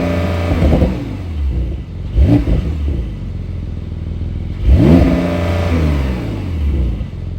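Porsche 992 Carrera S twin-turbo 3.0-litre flat-six revved in three quick blips, right at the start, about two seconds in and about five seconds in, each time dropping back to idle.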